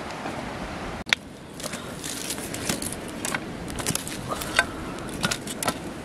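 A small fire of dry twigs and grass crackling, with irregular sharp pops and clicks, after a sharp click about a second in.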